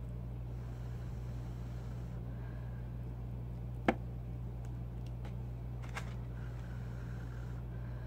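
A steady low hum, with a single sharp clink of a metal fork against the plate as spaghetti is twirled about four seconds in. A few fainter clicks of eating follow.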